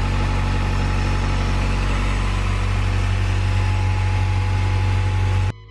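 Honda Prelude's H22A DOHC VTEC four-cylinder engine idling steadily after reassembly. The sound cuts off suddenly just before the end.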